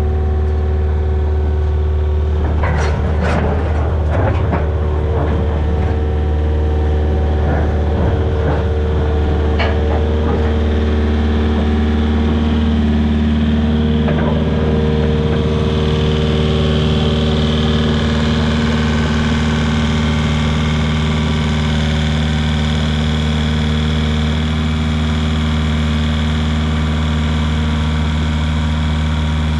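Mini excavator's diesel engine running steadily under load while driving a flail mower. From about two to ten seconds in comes a run of sharp cracks and snaps as brush is cut.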